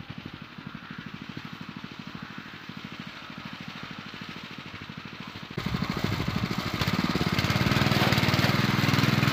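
Zimbru 6559 7 hp walk-behind tiller engine running with a steady pulse under load as it ploughs heavy, root-bound alfalfa ground. It is heard from a distance at first, then much louder and closer from about five and a half seconds in.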